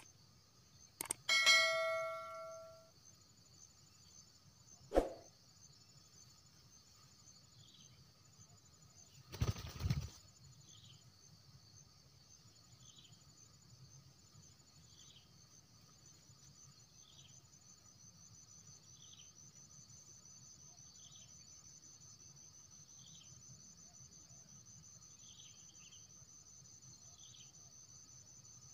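Steady chirring of crickets with short high chirps about every two seconds. About a second in come a few sharp clicks and a brief metallic ring. About nine and a half seconds in there is a short burst of wing flapping from a spotted dove.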